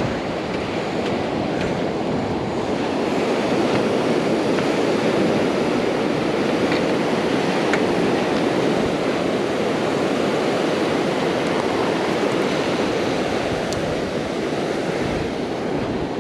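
Ocean surf washing onto the beach, a steady rush that swells slightly through the middle, with some wind on the microphone.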